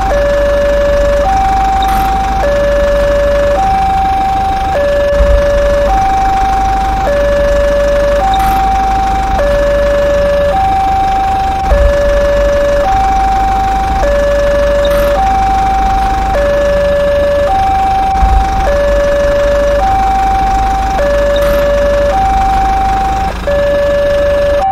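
Two-tone emergency-vehicle siren alternating between a low and a high note, each held for about a second, over a steady low engine rumble.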